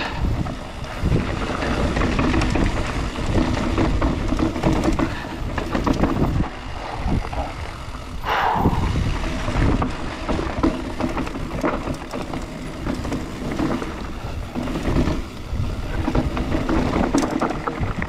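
Mountain bike riding down a trail: wind buffeting the microphone over tyre rumble, with frequent knocks and rattles from the bike over bumps. A brief squeal about halfway through.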